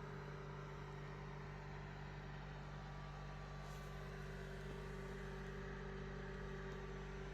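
A faint, steady machine hum with several constant low tones and a light hiss, as from a fan or small motor running.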